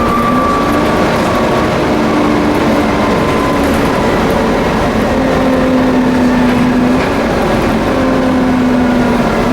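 Volvo B7TL double-decker bus running, its 7-litre six-cylinder diesel under a loud, steady vacuum-cleaner-like whine (the 'hoover') that steps up and down in pitch a few times.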